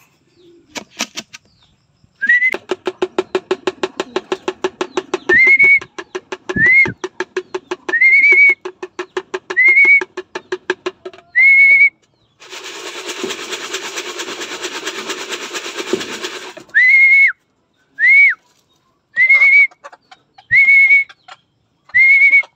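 A person whistling to call racing pigeons into the loft: a series of short, sharp whistles, each sliding up and holding briefly, about a dozen in all. Under the first half runs a fast rhythmic rattle of about four shakes a second, then a steady rattling hiss for about four seconds in the middle.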